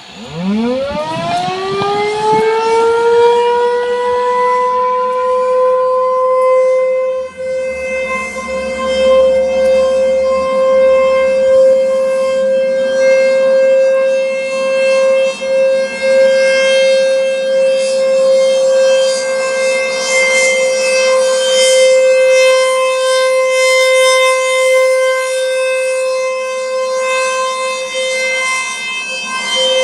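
American Signal T-128 outdoor warning siren winding up from rest in a rising glide, then holding one steady tone around 500 Hz with its overtones: the Alert signal of a monthly siren test. It is loud and echoing, with the level swelling and dipping slightly as it sounds.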